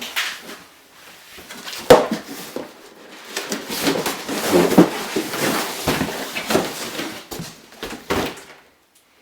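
A cardboard box and its packaging being handled and opened: a sharp knock about two seconds in, then several seconds of scraping, rustling and clattering, and another knock near the end.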